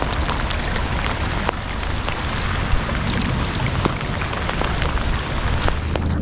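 Steady heavy rain: a dense hiss with many individual drops ticking on a surface close by.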